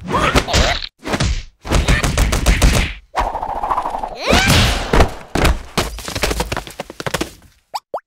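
Cartoon slapstick sound effects as a frog's stretchy tongue is tugged and the frog swung through the air: a dense run of thumps, whacks and swishes, with a short sliding tone about four and a half seconds in.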